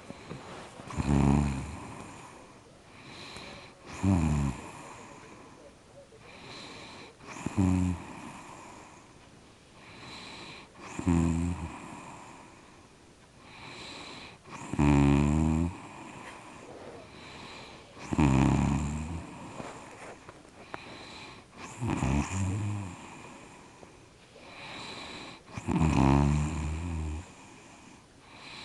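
Rhythmic snoring: a deep, rattling snore about every three and a half seconds, eight in all, with a fainter breath between each.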